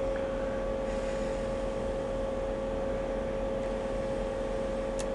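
A steady hum with one constant mid-pitched tone over a low hiss, with a faint click near the end.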